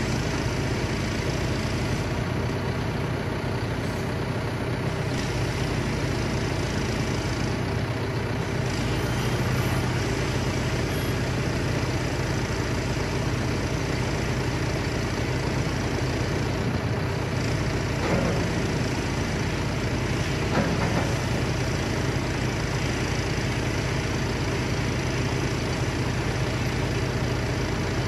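John Deere 6125 tractor's diesel engine running steadily at low revs while its front loader is worked, with two short knocks in the second half.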